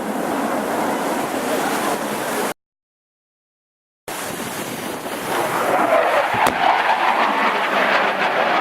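Panavia Tornado GR4's twin RB199 jet engines making a loud, steady noise as the jet flies past. The sound drops out completely for about a second and a half and comes back, swelling louder in the second half.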